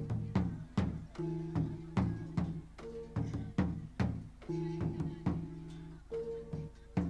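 Traditional Thái ethnic folk music for a ritual dance: drum strikes in an uneven, pounding beat over held instrumental tones that step between a few pitches.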